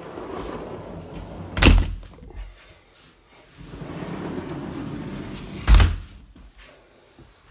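A sliding patio door with acoustic laminated glass is slid along its track twice. Each run is a rolling rumble that ends in a loud thud as the panel stops against the frame, the first about a second and a half in and the second near the end.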